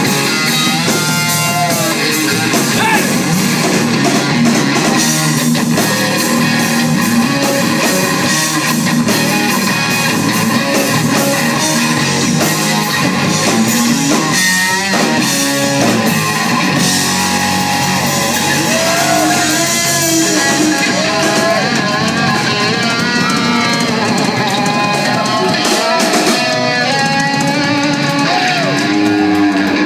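Live rock band playing loudly: electric guitar, bass guitar and a Ludwig drum kit.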